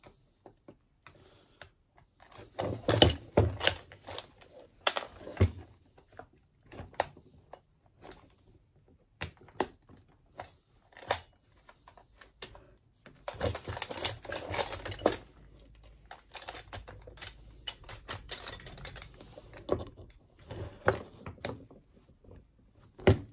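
Irregular clicks, taps and scrapes of a screwdriver and other hand tools working at the plastic housing of a reciprocating saw being taken apart, with tools knocking on a wooden workbench. There are busier runs of clatter a few seconds in, around the middle and again a little later.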